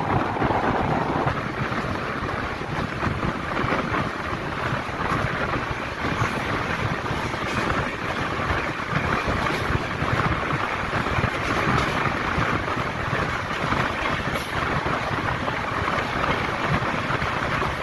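Steady rushing noise of a train running at speed, heard from aboard with wind buffeting the microphone, as another train passes close on the next track.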